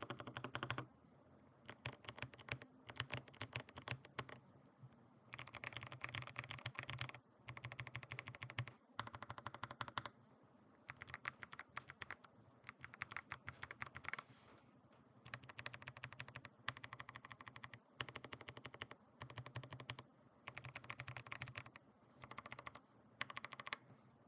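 Drop CTRL High Profile mechanical keyboard with lubed Kailh BOX White clicky switches and MT3 keycaps, typed on quickly in bursts of rapid keystrokes with short pauses between them.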